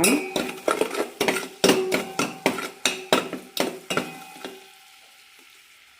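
A spoon stirring sugar syrup that is caramelizing in a metal pan, clinking and scraping against the pan about three times a second with a short ring after each strike. The stirring stops about four and a half seconds in, leaving only a faint hiss.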